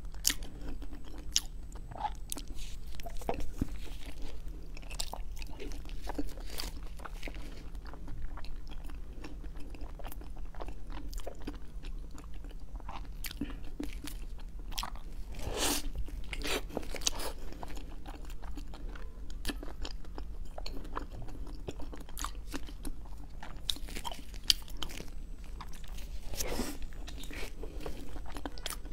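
Close-miked biting and chewing of a soft cream-filled mochi cake, with many short, irregular mouth clicks and smacks.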